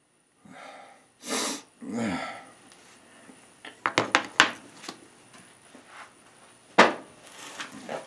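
A man's breathy sniffs and a short voiced exhale between sneezing fits, followed by a run of sharp clicks and knocks from handling objects about halfway through and one loud click near the end.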